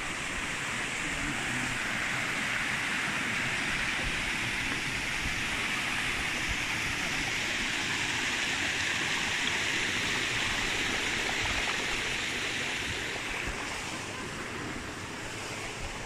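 Steady rushing of a shallow mountain stream spilling over a small concrete weir, fading somewhat in the last few seconds.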